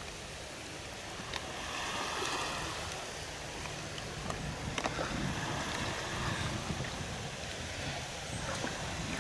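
Wind buffeting the microphone over a steady wash of waves, with gusts swelling and easing.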